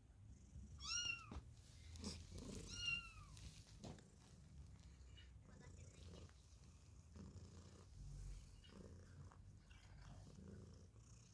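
A cat purring faintly and steadily, with two short high-pitched meows that rise and fall, about a second and about three seconds in.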